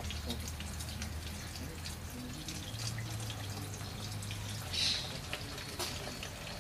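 Diesel poured from a metal can through a funnel into a 5-litre fuel measuring jar: a steady trickle and splash of liquid with fine drips throughout, over a low steady hum.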